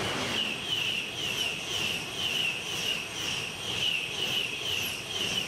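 ICE high-speed train passing close by at speed: a steady rushing noise with a high whine that pulses about three times a second.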